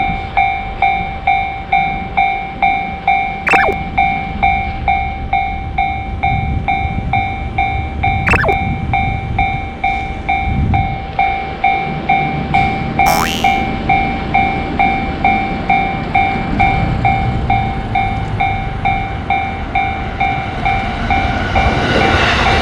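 Japanese railroad crossing warning bell ringing on and on, about three strokes every two seconds, over a low rumble. Near the end a train's noise builds up as it approaches.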